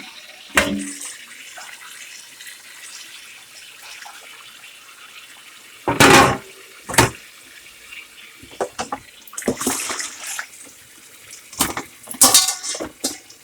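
Kitchen tap running over a pork roast in the sink as it is rinsed, a steady splashing, with several loud knocks and clunks in the sink, the loudest about six seconds in and a cluster near the end.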